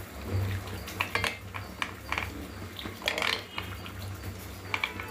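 Metal hand churner spun in a ceramic bowl of curd, clinking and scraping against the bowl in irregular bursts as the curd is churned smooth with salt and chilli powder.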